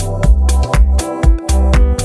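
Background music with a steady beat: regular low drum thumps with sharp ticks between them over held notes.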